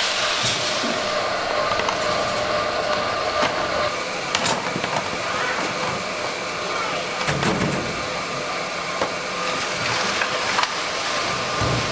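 Plastic crate of trimmed coconuts scraped across a concrete floor, then freshly boiled, steaming coconuts tipped from a wire basket into a plastic crate with scattered knocks, over steady background noise.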